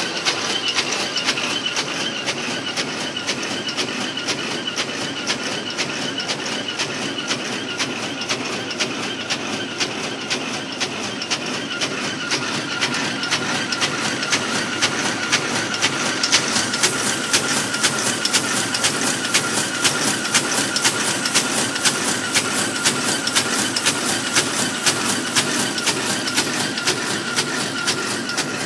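Dakiou HBJ-D800 paper carton erecting machine running at speed as it folds and glues carton blanks: a fast, steady mechanical clatter. A thin steady whine joins in about halfway through.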